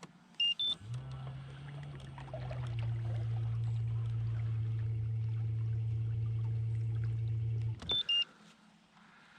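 Electric trolling motor on a fishing kayak switched on with a rising two-note beep, running with a steady low hum for about seven seconds, then switched off with a falling two-note beep.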